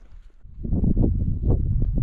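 Wind buffeting the camera's microphone: a loud, low rumble that builds about half a second in and cuts off abruptly at the end.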